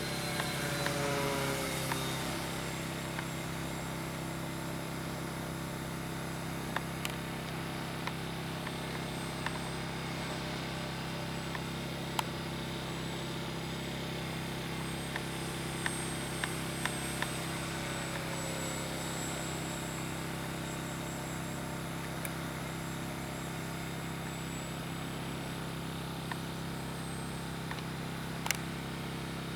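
Electric brushless outrunner motor and three-blade propeller of an E-flite Cirrus SR22T foam RC model airplane in flight. It gives a steady whine whose pitch slides down about a second in and again midway, with a few faint clicks.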